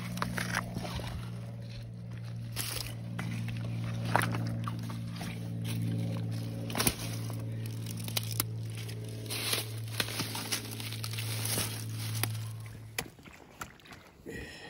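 Hands picking through rocks in shallow creek water: stones clacking and scraping against each other and water sloshing. A steady low hum runs underneath and stops shortly before the end.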